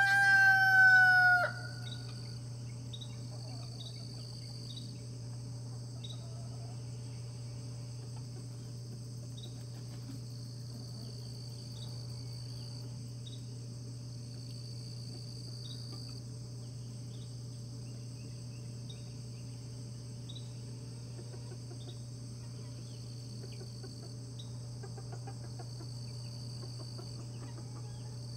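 A rooster crowing: the tail of one long crow that glides slightly down and ends about a second and a half in. After it come steady high insect droning that swells every few seconds, a few small chirps, and a low steady hum.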